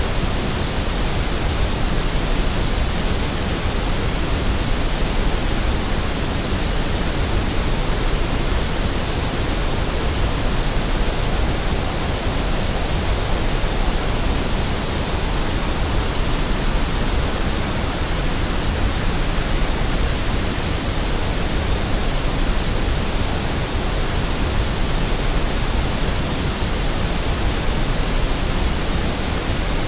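Steady, unchanging white noise: an even hiss spread evenly from the deepest to the highest pitches, with nothing else in it.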